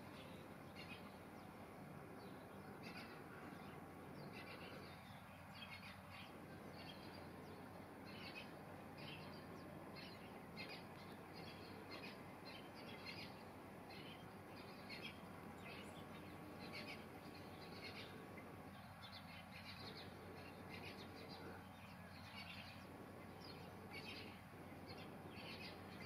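Faint high bird chirps, short and repeating at irregular intervals about one or two a second, over a steady background hiss.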